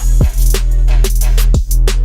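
Hip-hop trap beat built from FL Studio stock sounds: a drum-machine pattern of punchy kicks, sharp snare and hat hits over a heavy, sustained low bass. It comes back in right at the start after a short silence.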